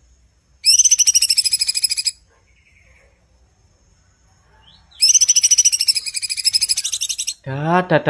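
Caged leafbird singing two long, very rapid trills of high notes, each lasting about one and a half to two and a half seconds, with a few seconds' pause between them.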